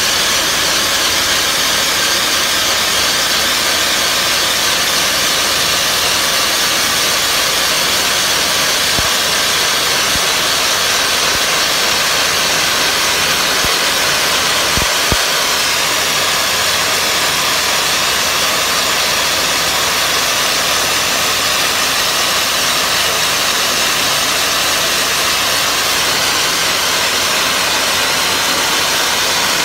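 Wet abrasive blasting nozzle spraying a water and fine recycled-glass mix at low pressure (about 20 psi) onto brickwork, a steady loud hiss as it strips the paint.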